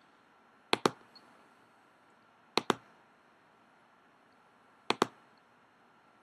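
Computer mouse clicking three times, a couple of seconds apart, each click a quick double tick of button press and release.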